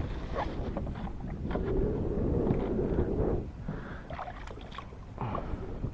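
Strong wind buffeting the microphone in a low rumble, with scattered knocks and taps and a swell of rushing noise about a second and a half in.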